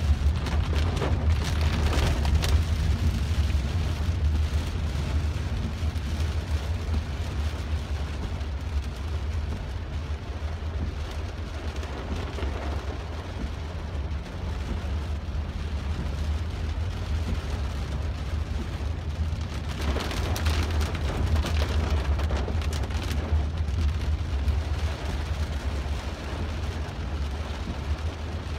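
Heavy rain falling on a car's roof and windshield, heard from inside the cabin over the low hum of the engine and road. The rain comes harder at the start and again about twenty seconds in.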